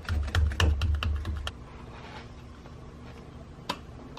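Fingers pressing and rubbing a domed Saab emblem sticker onto a wheel center cap that sits a little loose: a quick run of small clicks and taps over dull thumps for about a second and a half, then one more click near the end.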